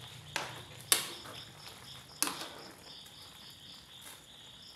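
A metal ladle knocking against an aluminium wok three times while stirring noodles and vegetables, the second knock the loudest. Insects chirp steadily underneath.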